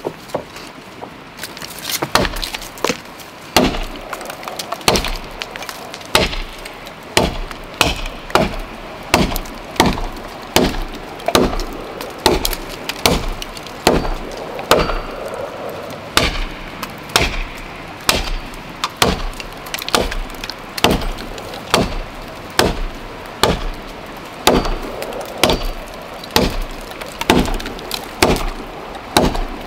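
Axe chopping into dead, weathered wood: a steady run of hard, sharp knocks, about three strikes every two seconds.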